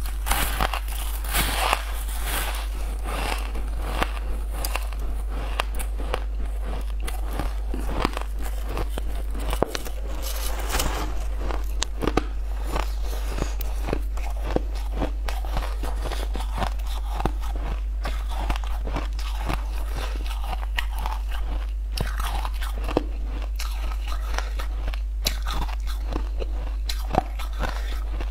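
Frosty white ice being bitten and chewed close to a lapel microphone: a steady run of sharp, brittle crunches as the ice breaks between the teeth, over a constant low hum.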